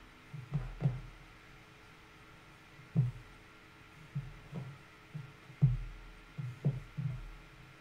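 Soft, low thuds and pats of fabric quilt squares being set down and pressed flat by hand on a wooden tabletop, about ten of them at uneven intervals, the sharpest about three seconds in and again a little before six seconds.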